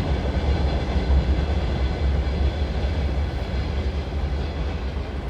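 A passing train running on the rails: a loud, steady low rumble that eases slowly toward the end as the train moves away.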